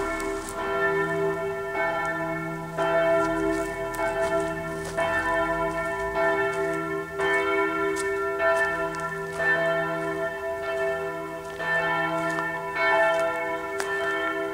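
Church bells ringing, several bells struck in turn about once a second, their tones overlapping and ringing on.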